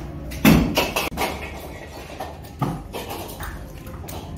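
Scrap compressors being unloaded onto a pile, landing with heavy metallic thuds and clanks. A loud one comes about half a second in, two more follow quickly, and another lands more than halfway through.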